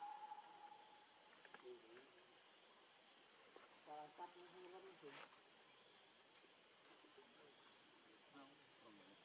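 A faint, steady, high-pitched insect chorus drones on. Brief faint voice-like calls come in near the middle, and again near the end.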